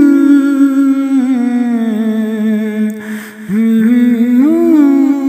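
A man humming the naat melody without words, in two long held phrases with ornamental turns, and a short breath between them about three seconds in.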